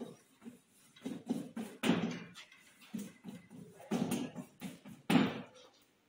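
Chalk tapping and scraping on a chalkboard as words are written: irregular short strokes, with a few louder knocks as the chalk strikes the board.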